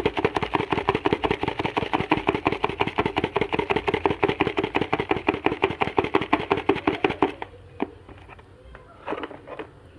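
Fast, even rattling and rustling as the confetti-filled plastic party-popper toy pack is handled and shaken. It stops abruptly about seven seconds in, leaving only a few faint handling sounds.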